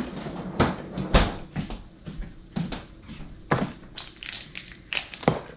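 Plastic food packaging crinkling and crackling in the hands, a string of sharp irregular crackles, as a pouch of sausage patties is opened.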